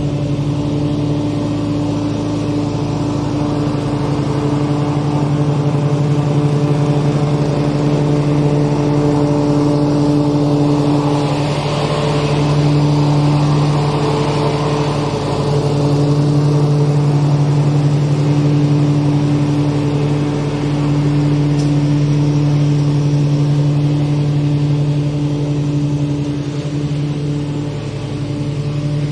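Lawn mower engine running steadily at constant speed while mowing, with small swells in loudness.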